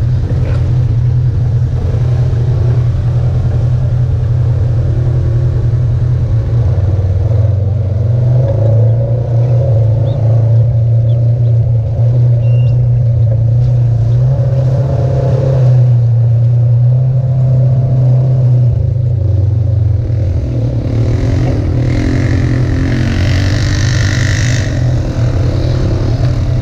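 Side-by-side UTV engine running steadily under way on a dirt trail, a loud low drone. About 20 seconds in it eases off, and a higher-pitched sound joins for a few seconds near the end, fitting the other off-road machines ahead.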